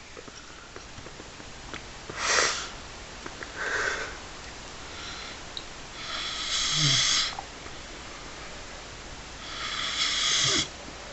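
Snoring in sleep: four snores a few seconds apart, two short ones followed by two longer, louder ones of about a second each.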